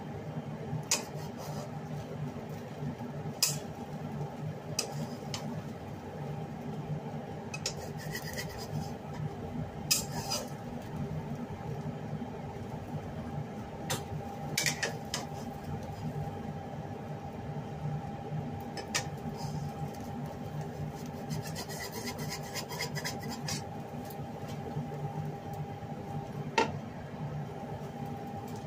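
A spatula scraping and tapping against a non-stick pan now and then as an omelette is worked in it, with a longer run of scraping near the end, over a steady low hum.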